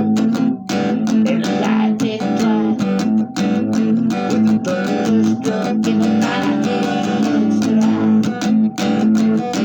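Guitar music: chords strummed in a steady rhythm.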